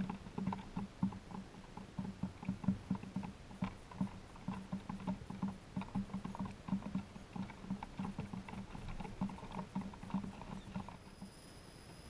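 Mourning doves and a dark-eyed junco pecking seed off a wooden bird table: rapid, irregular tapping, several pecks a second, which stops near the end.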